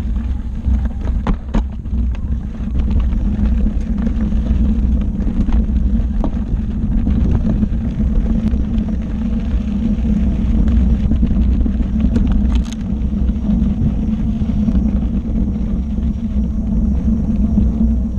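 Steady low rumble from a Gotway ACM electric unicycle riding over a rocky dirt trail, with a few sharp clicks and knocks as the tyre passes over stones.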